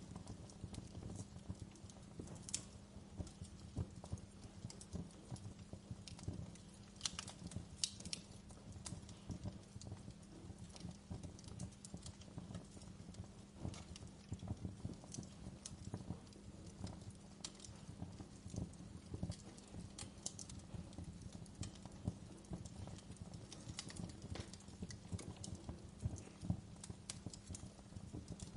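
Wood fire crackling in a fireplace: irregular pops and snaps over a steady low background.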